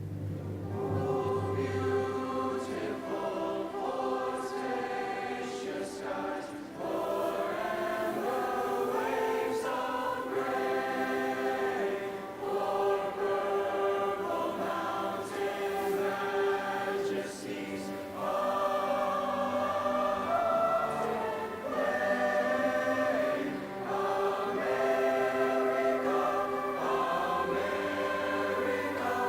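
Choir singing with instrumental accompaniment, many voices holding sustained notes.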